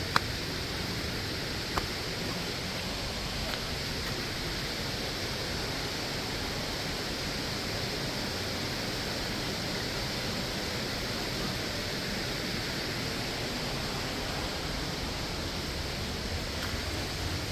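Waterfall: a steady, unbroken rush of falling water. There is a short click at the very start and another about two seconds in.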